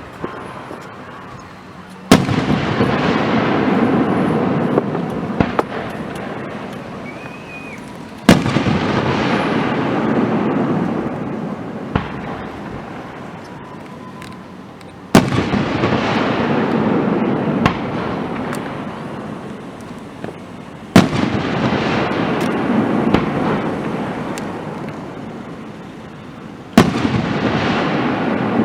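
Aerial fireworks shells bursting: five loud sharp bangs about six seconds apart. Each bang is followed by several seconds of slowly fading rushing noise scattered with small crackling pops.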